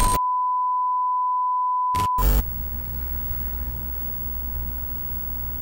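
A steady, pure electronic beep held for about two seconds, cut off by a short burst of noise, followed by a quieter low drone.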